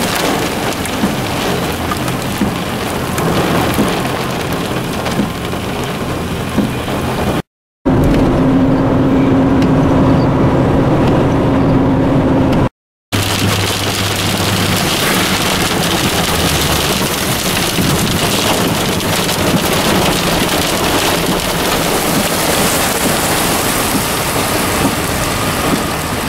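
Heavy rain mixed with small hail beating on a vehicle, heard from inside the cab as a dense, steady hiss with many small ticks. A steady hum joins in a middle stretch between two abrupt cuts.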